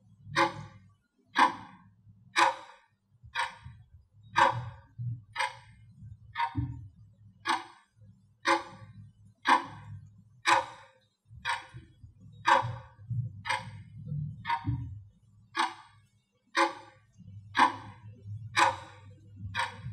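Clock ticking sound effect, an even, clear tick about once a second, timing a countdown.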